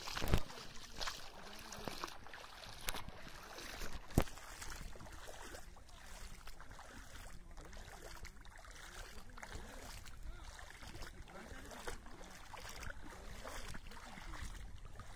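Shallow muddy floodwater sloshing and lapping, with a few sharp knocks in the first few seconds, then a steady low wash.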